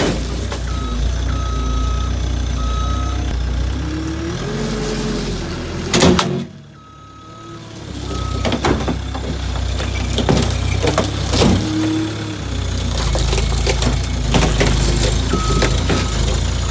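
Skid steer's diesel engine running, with its backup alarm beeping in short groups and a hydraulic whine rising and falling. There is a loud crash about six seconds in, then scattered knocks and crunches as the machine works on the car body.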